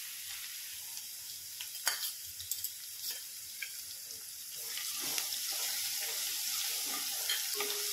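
Crushed garlic sizzling in hot oil with mustard seeds and cumin in a non-stick kadhai, a steady frying hiss. From about halfway through, a spoon stirring and scraping in the pan adds louder clicks and scrapes.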